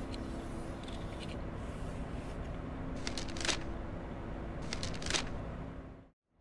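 Paper pages of a book rustling as they are handled and turned, in two short bursts about three seconds in and about five seconds in, over a steady low hiss. The sound cuts out just before the end.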